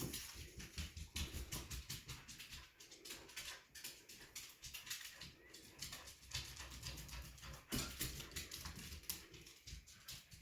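Corgis nosing around a room hunting for a hidden toy by scent: faint, irregular patter of paws and sniffing.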